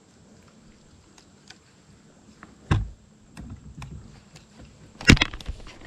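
Light scattered ticks and clicks on a fishing boat, a hollow thump about three seconds in, then a sharp knock and clatter near the end as a bass is hooked and fought.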